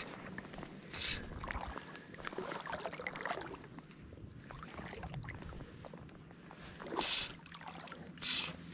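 River water gurgling and trickling, with three short swishing bursts: about a second in, near seven seconds, and just before the end.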